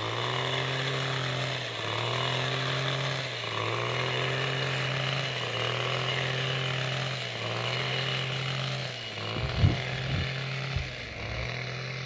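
A small engine running steadily, its note dipping and picking up again about every two seconds. A few knocks come near the end.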